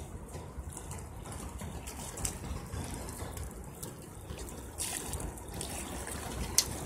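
River water lapping and trickling against the rocky bank as a steady wash. A few short clicks cut through it, the sharpest near the end.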